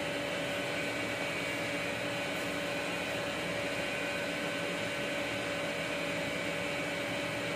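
Steady machine hum with a constant whine, unchanging throughout.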